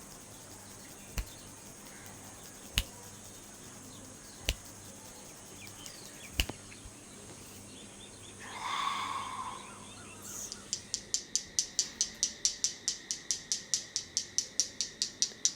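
Single sharp finger snaps, one every second and a half or so, from hands giving an ASMR head massage. About ten seconds in, a fast, even run of crisp high clicks starts, about five a second.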